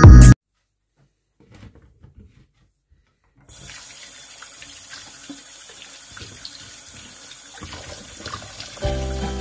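Kitchen tap running into a glass dish of okra in a stainless steel sink, with hands rubbing the pods under the stream; the steady water noise starts about three and a half seconds in. Loud electronic music cuts off just after the start, and music comes back in near the end.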